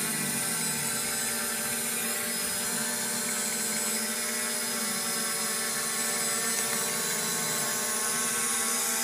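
SJRC F22S quadcopter hovering on a low-voltage battery, its motors and propellers giving a steady, even whine.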